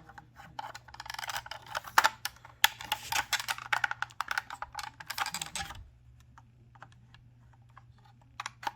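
Plastic cupholder parts clicking and rattling as the mechanism is worked by hand into the channel of its housing, with quick dense clicking for about five seconds, then only a few scattered clicks.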